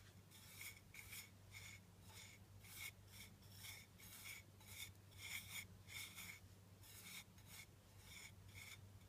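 Fingers rubbing and sweeping a dry ground-spice mix across a ceramic plate: faint, gritty scraping strokes, about two or three a second.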